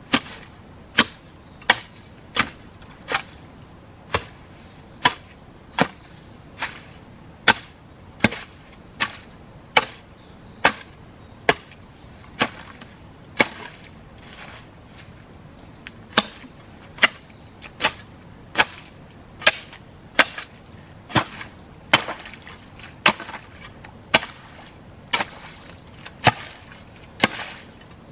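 Repeated chopping blows on wood, about one a second, with a short pause about halfway through. A steady high insect trill runs behind.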